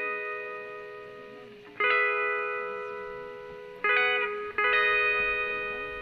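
Background music: a strummed, effected electric guitar playing sustained chords, struck about every two seconds and left to ring out, with no vocals.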